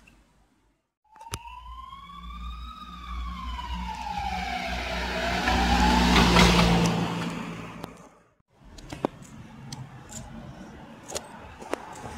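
Emergency vehicle siren wailing in slow sweeps, rising then falling then rising again, over the vehicle's engine, growing loud as it passes close by and then cutting off suddenly. After a brief silence, general street traffic noise with a few sharp clicks.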